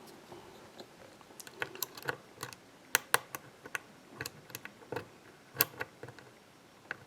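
Lock pick working the pins inside a pin-tumbler challenge lock: irregular small metallic clicks and ticks, a few louder ones about three seconds in and again near six seconds.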